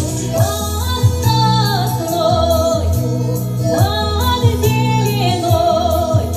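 Background music: a song with a singing voice carrying a wavering melody over a steady bass line.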